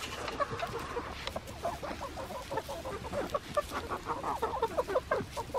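A flock of hens clucking continuously with many short overlapping calls while they crowd round a pumpkin, pecking at it.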